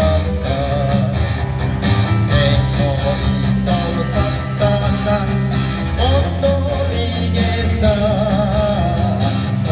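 Live band music played loud over a concert PA and heard from within the crowd: a singer's voice over guitar and bass, with a steady beat.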